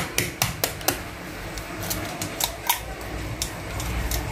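Eggshell cracked and broken apart by fingers: a run of irregular sharp clicks and snaps as the shell is opened to separate the yolk from the white.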